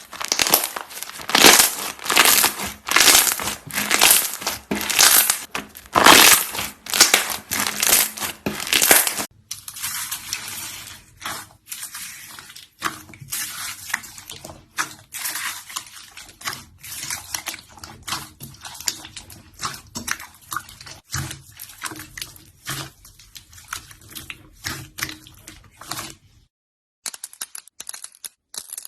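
Slime being squeezed and pressed by hand, giving dense runs of crackling, popping clicks. About nine seconds in, the crackle becomes sparser and quieter. Near the end it breaks off briefly and then resumes faintly.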